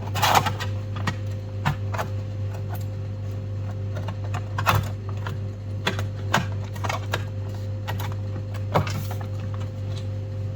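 Irregular light clicks and taps of a MacBook Pro's aluminium case and bottom cover being handled, about one or two a second, over a steady low hum.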